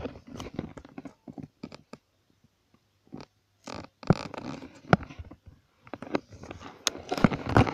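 Close handling noise on the microphone: irregular clicks, taps and rustles. It stops for about a second and a half a couple of seconds in, then grows louder near the end.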